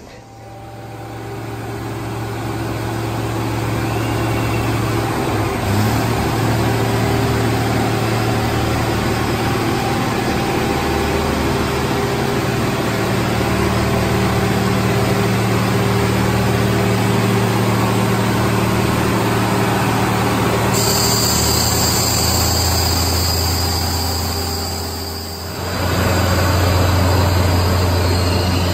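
A train rolling slowly past, with a steady engine hum under the noise of the wheels, growing louder over the first few seconds. High wheel squeal sets in about three-quarters of the way through.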